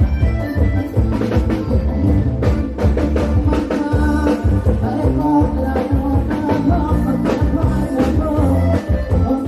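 Loud live Isan rock music from a mobile sound-truck band (rot hae): heavy bass and a drum kit keep a steady beat under a melody line, picked up by the camera's own microphone.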